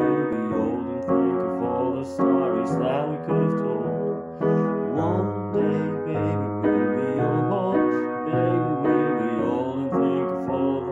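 Piano playing a slow introduction of sustained chords, a new chord or note struck about every half second.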